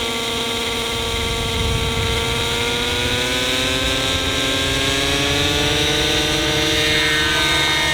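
Old radio-controlled model helicopter running: a steady engine-and-rotor drone that slowly rises in pitch from about halfway through as it spools up.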